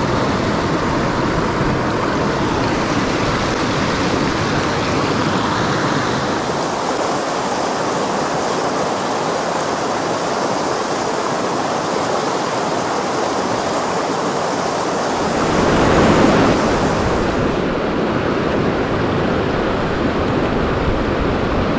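Steady rush of mountain stream water, swelling louder for a moment about sixteen seconds in.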